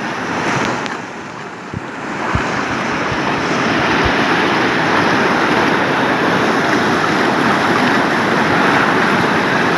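Rushing water: a dense, steady rush that builds over the first couple of seconds and then holds, with wind buffeting the microphone and a few low knocks in the first few seconds.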